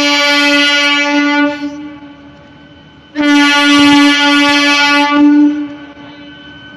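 Electric multiple-unit train's horn sounding two long, steady blasts, the first about a second and a half, the second about two and a half seconds after a short gap.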